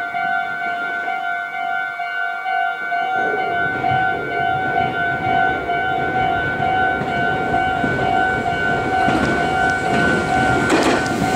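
Japanese level-crossing warning bell ringing in a steady, evenly pulsing two-tone pattern. From about three seconds in, the rumble of an approaching Meitetsu electric train builds beneath it, and the train arrives loud and close near the end.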